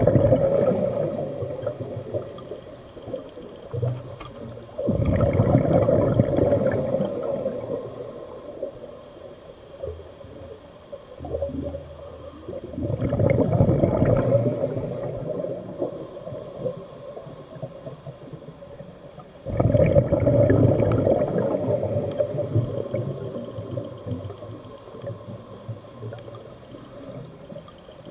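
A scuba diver breathing through a regulator underwater: exhaled bubbles gurgle out four times, each burst starting suddenly and tailing off over a few seconds.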